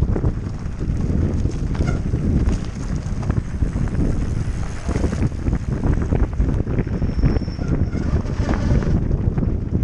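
Wind buffeting the microphone of a bike-mounted camera as a mountain bike rolls down a gravel track, with the tyres crunching over loose stones and the bike and mount rattling in many short clicks.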